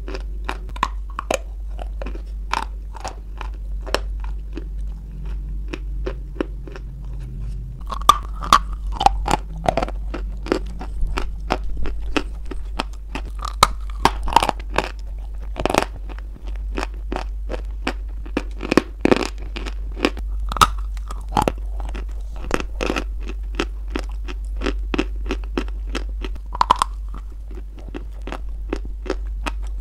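Close-miked biting and chewing of a hard white chalky lump: a dense run of sharp crunches and crumbly chewing, with louder bites from about eight seconds in, over a low steady hum.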